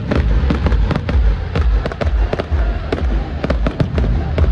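Fireworks display: a dense, rapid barrage of aerial shells bursting in sharp bangs and crackles, several a second, over a continuous deep rumble of booms.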